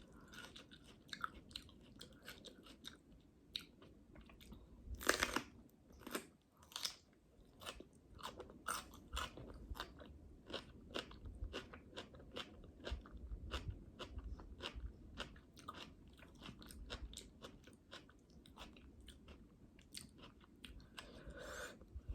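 Close-miked crunching and chewing of a raw jalapeño pepper stuffed with cream cheese: many small wet crunches and mouth clicks, with a louder bite about five seconds in and another about two seconds later.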